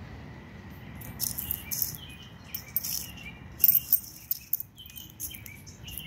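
Frogs calling: a run of short calls one after another, starting about a second in, the loudest near the middle.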